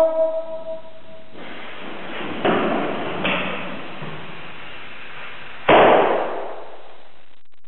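Prototype CO2 airsoft grenade going off: one sudden, incredibly loud bang about six seconds in, ringing out in the room for about a second, after two softer knocks. The blast overloads the microphone, and the sound stutters and drops out near the end.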